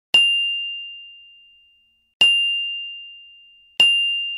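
Notification-bell sound effect of a subscribe-button animation: three clear, single-pitched dings, the second about two seconds after the first and the third a second and a half later, each ringing out and fading.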